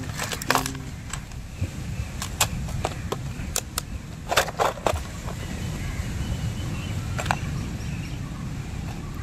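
Orange plastic lure box being handled: scattered sharp plastic clicks and clacks as its latches snap and the lid is closed and opened, loudest in a quick cluster a little after four seconds in, over a steady low rumble.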